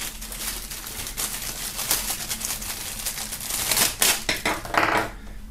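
Clear plastic bag crinkling and rustling as a coiled shisha hose is worked out of it, with many small irregular clicks.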